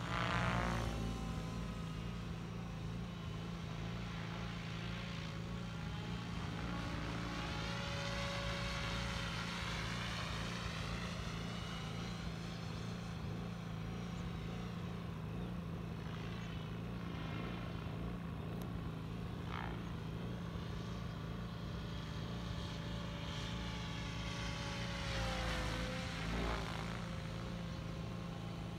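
XLPower radio-controlled helicopter flying F3C precision manoeuvres: the rotor and motor give a steady drone whose tone sweeps up and down as the helicopter moves about the sky.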